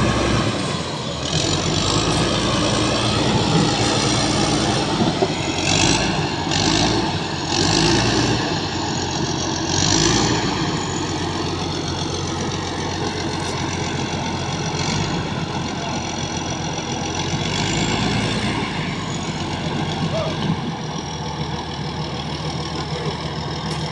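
Komatsu bulldozer's diesel engine running steadily as the machine reverses up onto a low-bed trailer, with a few brief higher-pitched bursts between about six and ten seconds in.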